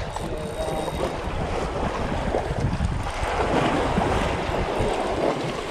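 Waves washing against the rocks of a jetty, with wind buffeting the microphone. The surf grows louder about halfway through.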